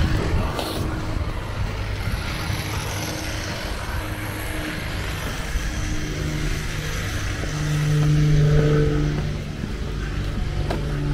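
Road traffic: a motor vehicle's engine hum over steady street noise, growing louder to a peak about eight seconds in and then easing off as it passes.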